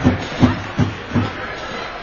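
Music with a steady beat, about two and a half beats a second, which stops about halfway through.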